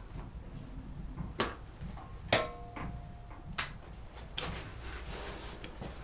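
A few sharp clicks and knocks about a second apart, one followed by a short squeak, over a low rumble; no engine is running.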